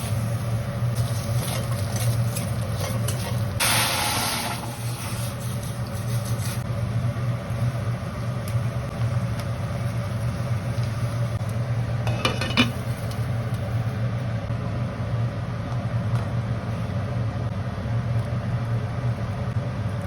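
Stir-frying in a pan: food sizzling with the spatula stirring and scraping, over a steady low hum. A brief louder hiss about four seconds in, and a sharp clink about twelve seconds in.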